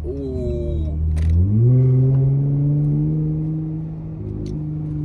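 V6 car engine with a mid-muffler delete and 5-inch Carven exhaust tips, revving up sharply about a second and a half in as the car accelerates, then holding a loud, steady exhaust drone, heard from inside the car.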